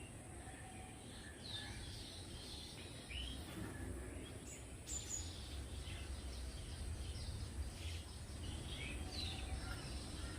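Small birds chirping and twittering in short scattered calls, over a steady low background rumble that grows louder about three seconds in.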